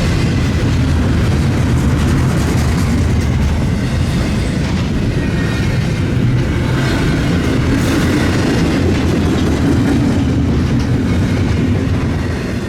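Diesel-powered freight train rolling past: locomotive engine running and steel wheels clattering over the rails.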